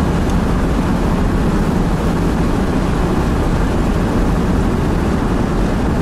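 1957 Ford Thunderbird with its supercharged F-code 312 cubic inch V8 cruising at steady speed, heard from inside the car as a constant drone of engine, wind and tyre noise.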